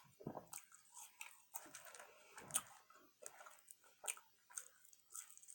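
A person chewing food close to the microphone: faint wet smacks and crisp clicks at an irregular pace, with one louder click about two and a half seconds in.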